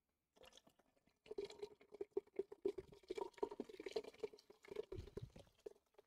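Carbonated soda poured from a can into a cooking pot already holding soda: the stream splashes and fizzes into the liquid. It starts faintly and gets going about a second in.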